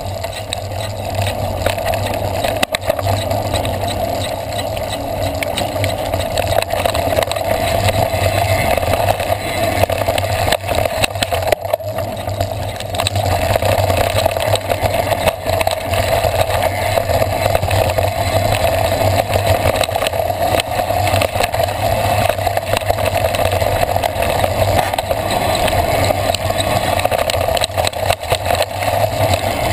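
Mountain bike riding down a dirt trail, recorded from a handlebar-mounted action camera: a steady rush of wind on the microphone and tyre rumble, with frequent short knocks and rattles from the bike over bumps.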